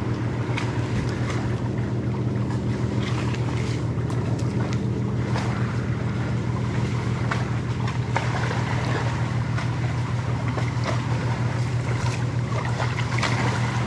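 A motor running steadily nearby with a low, unchanging hum, over wind noise, with scattered faint clicks.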